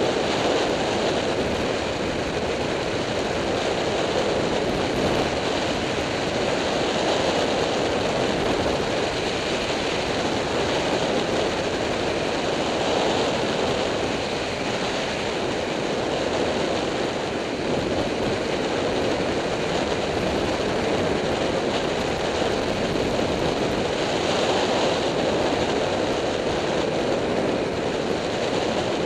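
Steady wind rush over a helmet-mounted camera on a Yamaha FZ6-R motorcycle riding at speed, with the motorcycle's engine and tyre noise blended underneath. The level swells and eases gently but never breaks.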